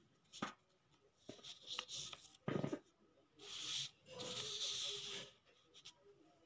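Sheets of drawing paper handled and slid over one another: a few light knocks and taps, then two stretches of paper rustling and sliding in the middle.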